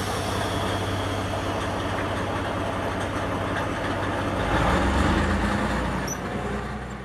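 Plymouth switcher locomotive's engine running as it pulls a caboose along, with a steady low drone. The sound grows louder about four and a half seconds in and fades away near the end.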